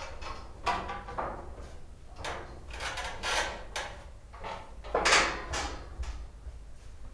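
A series of irregular scuffs and rustles, each short, the loudest about five seconds in.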